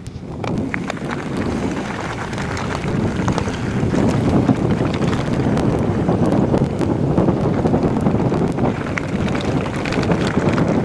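Wind buffeting the camera microphone and mountain-bike tyres rumbling over a stony trail on a fast descent, growing louder over the first few seconds as the bike picks up speed, with scattered small clicks and rattles from the bike and stones.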